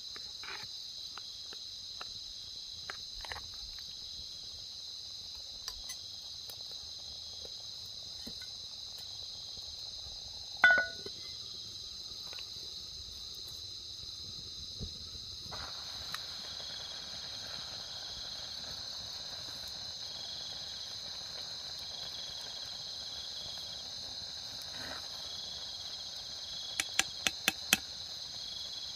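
Steady insect chorus, a continuous high-pitched drone. A single loud knock comes about a third of the way in, and a quick run of five sharp taps comes near the end.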